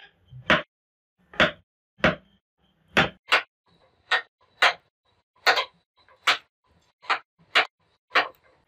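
A wooden mallet tapping a hand chisel to carve motifs into a wooden clock face. Sharp, separate knocks come about one to two a second, often in quick pairs.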